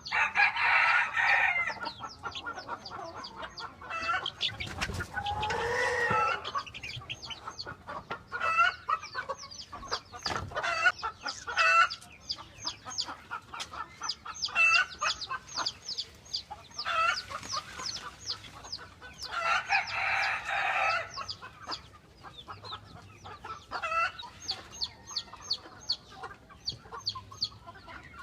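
Chickens calling: a steady stream of short, high peeps from six-week-old chicks, broken by four longer, louder calls from grown birds, near the start, about five seconds in, and twice in the middle.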